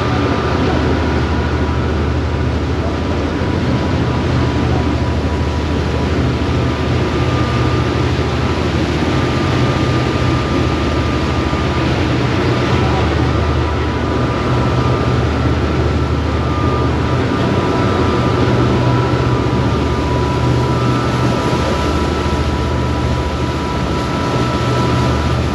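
The Biwako Kisen cruise boat Benten's engines run steadily at cruising speed, a low drone with a steady high whine over it. The boat's churning wake adds a continuous rush of water.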